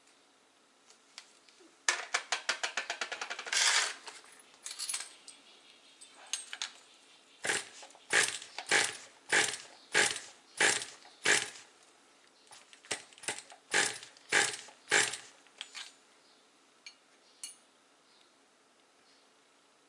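Sharp metallic clicks and knocks from hands working on a nitro RC car's chassis. A fast run of clicks comes about two seconds in, then two runs of about six evenly spaced knocks, roughly half a second apart.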